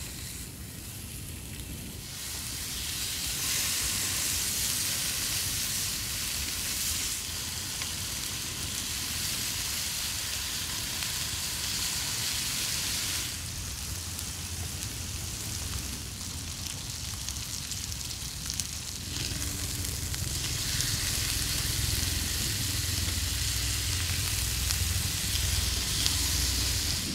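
Sliced pork belly sizzling on a hot griddle pan, with garlic, onion and kimchi frying alongside. The sizzle gets louder about two seconds in and eases off briefly near the middle.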